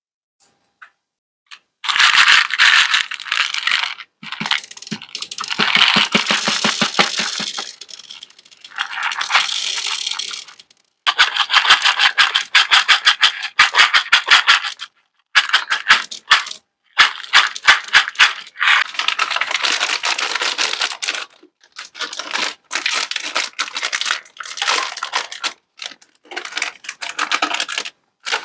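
Small hard sweets rattling as they are poured and shaken into a platter: dense, rapid clicking in bursts of a few seconds with brief pauses between.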